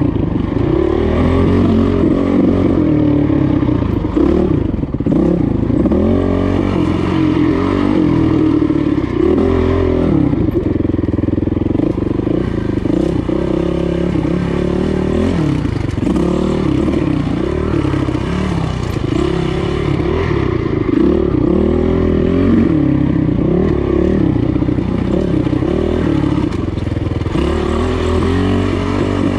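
Dirt bike engine revving up and down over and over, its pitch rising and falling every second or two as the throttle is worked through technical singletrack.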